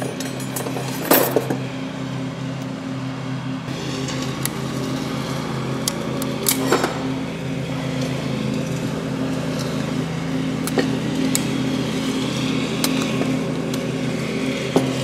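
Thin steel shims and a snap ring clinking against a crawler steering clutch pack as they are handled and worked into place, a few sharp metal clinks over a steady low hum.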